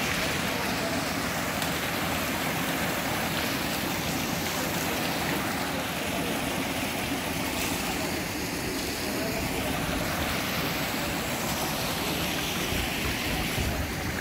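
Steady rush of flowing river water, an even hiss without breaks.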